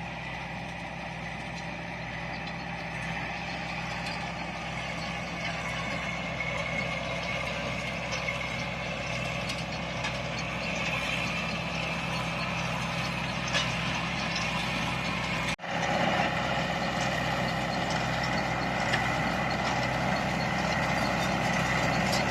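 Farm tractor engine running steadily during hay baling, a low even drone that slowly grows louder, broken by a short cut about fifteen and a half seconds in.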